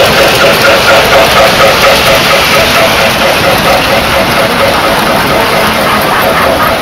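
O-gauge model trains running on three-rail track: a steady, loud rumble and whine from the locomotives' motors and the wheels on the rails.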